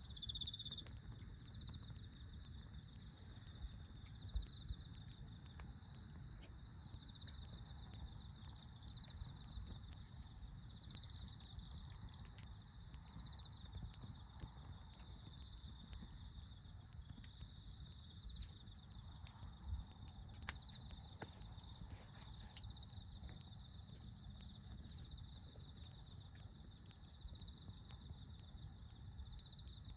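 A steady, high-pitched chorus of insects chirring without a break, with the faint irregular crackle of a burning campfire scattered through it.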